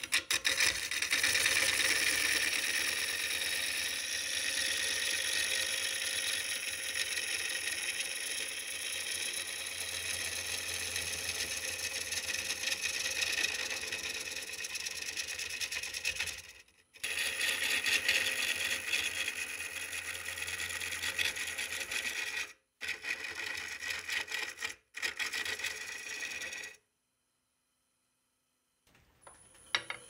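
Wood being worked on a running wood lathe: a steady scraping with a fine rapid chatter over a low motor hum, as a tool or abrasive works the spinning piece. It cuts off abruptly a few times, with about two seconds of silence near the end.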